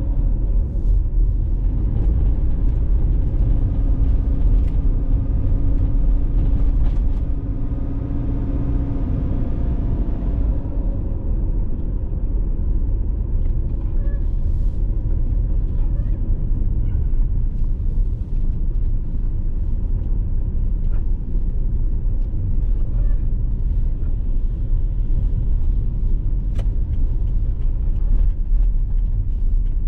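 Car driving on a road: a steady low rumble of engine and tyres. A humming tone over the rumble fades out about ten seconds in, and the noise softens a little after that.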